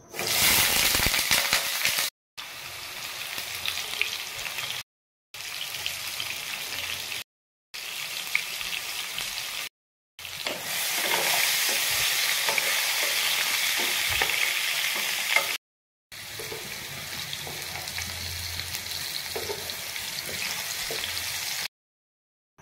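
Potato chunks sizzling and frying in hot oil in a nonstick wok, a steady crackling hiss, loudest right at the start and again while a wooden spatula stirs them. The sound cuts off abruptly to silence several times between short clips.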